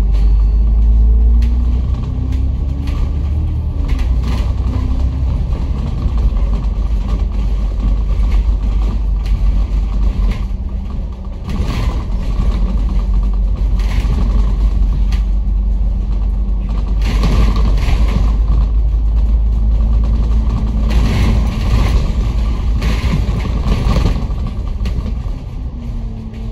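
A bus under way, heard from the passenger cabin: a steady low engine and road rumble. The engine note rises as the bus pulls up through the gears in the first few seconds and rises again later on.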